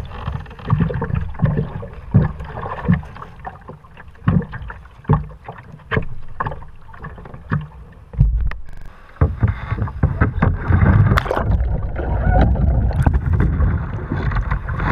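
Sea-kayak paddle strokes splashing in the water, about one stroke every three-quarters of a second. A little past halfway this gives way to a louder, continuous sloshing and churning of sea water around the kayak among the rock of a sea cave.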